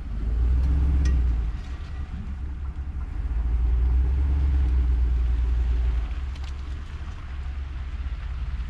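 Ford F350 pickup truck running and moving off with a dump trailer in tow: a low engine rumble that swells twice and eases, with a few faint clicks.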